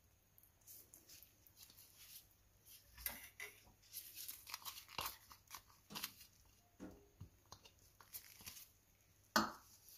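Faint, scattered short scrapes and taps of a small glass container and utensil against a glass mixing bowl as melted butter is poured onto icing sugar, with one louder thump near the end.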